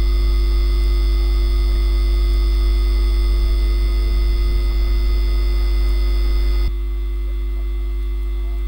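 Steady electrical hum with several thin, steady high tones above it and no other sound standing out. About three quarters of the way through it abruptly drops in level and the highest tones stop.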